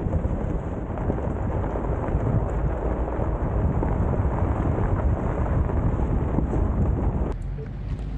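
Wind buffeting an outside microphone over the crackle and rumble of all-terrain tyres rolling on a gravel road as a Subaru Outback Wilderness drives along. Near the end it drops suddenly to a softer, thinner rumble.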